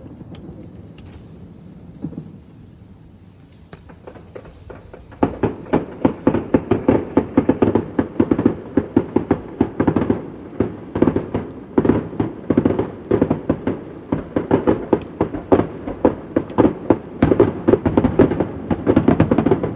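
Fireworks display: a fading low rumble of bursts, then about five seconds in a rapid barrage of bangs and crackles starts, many a second, and keeps going.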